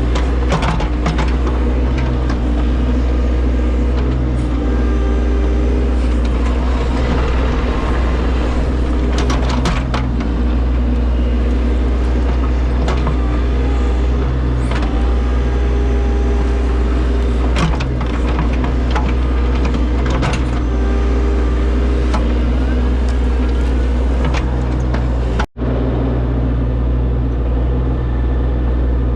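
Large engine running steadily at a constant speed, with occasional knocks and clanks over it. The sound cuts out for a split second near the end.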